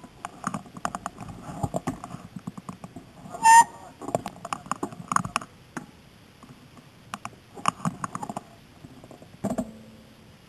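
Irregular light clicking and ticking from bicycles in the group, with one short whistle blast about a third of the way in and a couple of dull knocks near the end.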